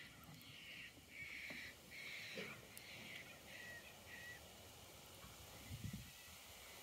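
A bird giving a run of short, rough calls, about half a second each, that fade out about four seconds in. A few faint low knocks follow near the end.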